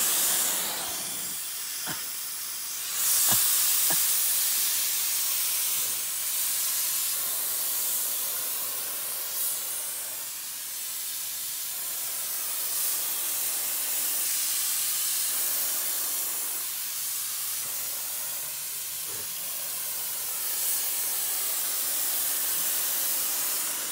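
Hose-fed electric HVLP paint sprayer running, a steady airy hiss from the turbine and spray gun that swells about three seconds in and then rises and falls gently as the gun is moved and triggered.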